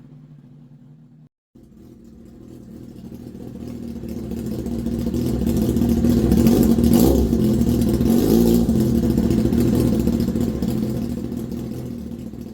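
Honda CBR1000RR (SC57) inline-four exhaust through an aftermarket silencer. After a brief cut about a second and a half in, it builds steadily in loudness to a peak about halfway through, then fades away.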